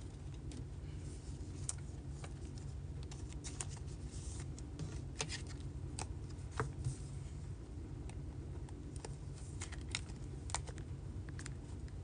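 Baseball cards being handled: a stack of cards flicked through by hand and a card slipped into a rigid plastic toploader, giving faint, irregular clicks and ticks over a low steady hum.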